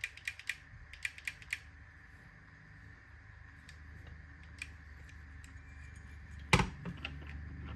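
Computer keyboard and mouse clicks: a quick run of light clicks at the start, a few scattered ones after, and one louder knock near the end.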